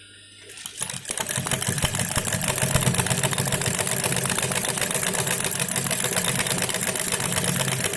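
High-speed industrial sewing machine with a buttonhole attachment stitching a buttonhole. It starts about half a second in, builds up over the next half second, then runs at a fast, even stitching rate.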